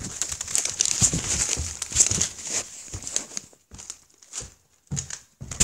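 Crisp packet and clothing crinkling and rustling close to the microphone as the camera is carried. About three seconds in this gives way to a few short dull thumps about half a second apart: footsteps on stairs.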